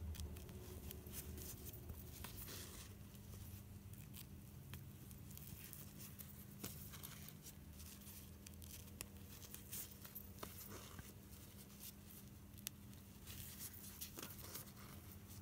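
Faint rustling and scratching of cotton fabric being handled while a hand-sewing needle and thread are drawn through the cloth, with scattered small ticks. A low steady hum sits underneath.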